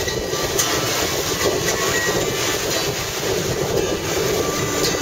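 Wind blowing across the microphone over breaking sea surf: a steady, dense rushing noise with no rhythm.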